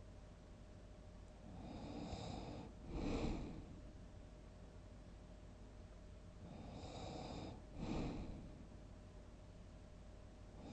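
A person snoring: two breaths about five seconds apart, each a drawn-out snore followed straight away by a shorter, louder burst.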